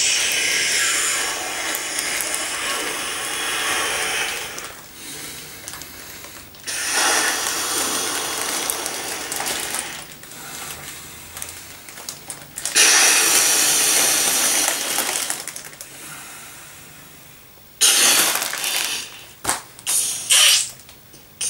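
A man blowing breath after breath into the nozzle of an empty foil wine-cask bladder to inflate it like a balloon, the foil bag crinkling as it fills. There are four long blows of a few seconds each with short pauses between, then a few short puffs near the end.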